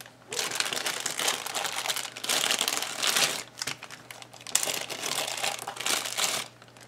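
Plastic packaging crinkling in several bouts as a dash cam kit's parts are unwrapped.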